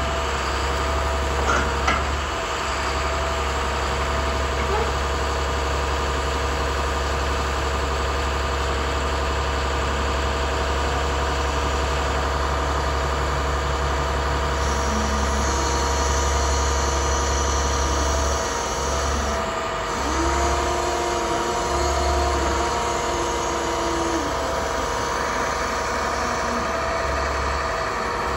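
MaxxForce DT turbo diesel of an International 7300 digger derrick truck running steadily, powering the Terex derrick's hydraulics while the boom and auger are worked. A couple of short clunks come near the start, and a steady whine comes in for a few seconds past the middle.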